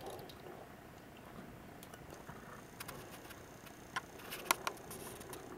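Wind rumbling on the microphone, with a scattered handful of sharp clicks, the loudest about four and a half seconds in.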